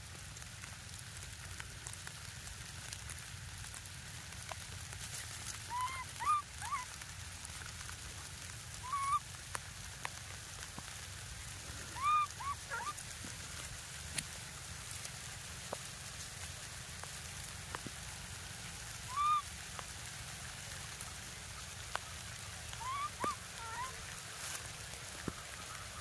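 Baby macaque giving short high cries, each a quick rise and fall in pitch, in clusters of one to three every few seconds.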